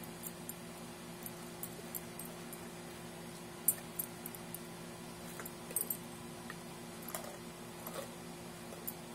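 Mastiff puppy gnawing and licking a small piece of frozen raw tilapia: scattered quiet clicks and ticks of teeth and tongue, with the metal tags on its collar jingling now and then.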